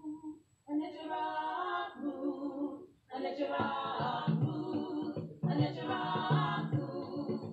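Unaccompanied singing in held notes, in phrases with short breaks between them; a lower part joins about three and a half seconds in.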